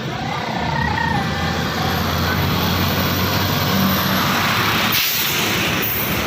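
A heavy vehicle's diesel engine running as it passes close by, with the road noise swelling through the middle. Near the end come two short sharp hisses of compressed air, as from air brakes.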